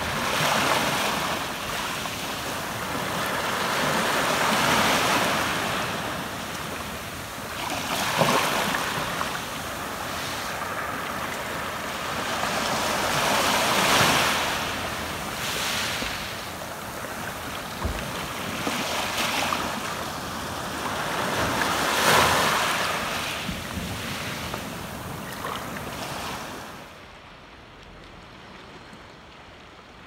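Small sea waves breaking and washing up a sand-and-gravel beach, surging and ebbing several times, heard through a phone's waterproof case. Near the end the sound turns quieter and muffled.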